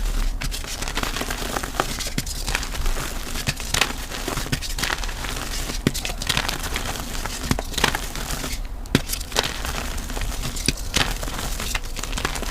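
Chalk being crushed: a continuous dry crunching and crumbling, broken by frequent sharp snaps as pieces break.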